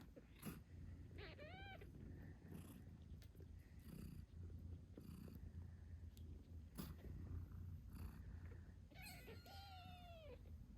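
British shorthair mother cat purring steadily and faintly while her newborn kittens give two thin, high mews: a short one about a second in and a longer one near the end that drops in pitch as it fades.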